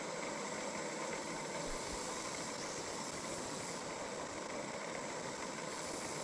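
Wood lathe running at a steady speed with a cloth pressed against the spinning workpiece to rub in finish: an even, unchanging machine noise.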